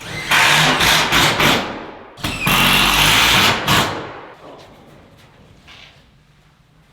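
Power driver running in two bursts of about a second and a half each, driving screws to fasten steel ceiling panels.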